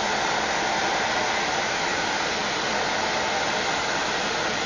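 Handheld hair dryer blowing steadily, a constant hiss of air and motor.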